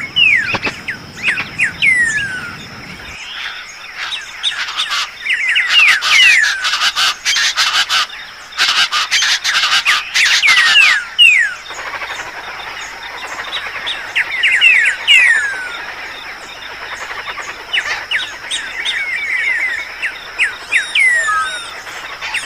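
Dawn chorus of many birds calling together, with repeated falling whistled notes and harsher, noisier calls that are loudest from about a quarter to half of the way through. A steady high-pitched drone runs underneath.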